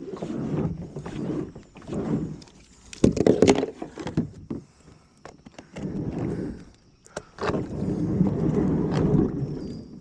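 Kayak paddle strokes, the paddle dipping and pulling through the water in irregular bursts, with a few sharp knocks against the hull.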